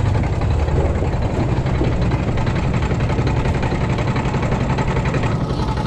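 A small petrol engine idling steadily, with a low hum and a fast even pulse.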